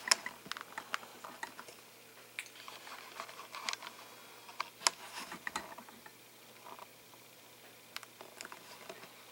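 Scattered light clicks and taps of handling noise, irregular and soft, bunched near the start and again about five seconds in.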